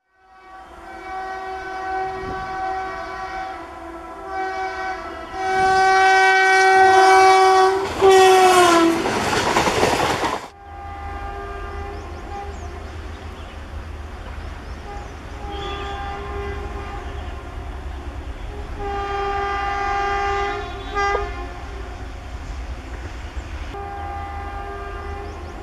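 Indian Railways WAG-7 electric locomotive sounding its horn in a series of long blasts as it approaches, the pitch dropping as it passes, followed by a loud rush of the passing train. Then a steady low rumble and clatter of the coaches going by, with several fainter horn blasts.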